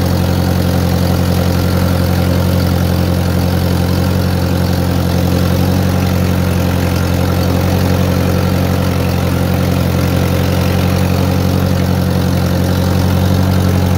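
1955 Massey Ferguson TO-35's four-cylinder gasoline engine idling steadily at an even, unchanging speed.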